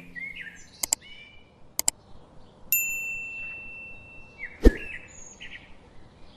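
Small birds chirping in the background, with two quick double clicks in the first two seconds, a bright ding about three seconds in that rings on for nearly two seconds, and one sharp knock about two-thirds of the way through.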